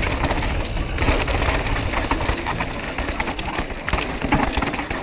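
Mountain bike descending a downhill trail: tyres running over dirt and rock, with the chain and frame rattling and clattering, and wind rumbling on the action camera's microphone.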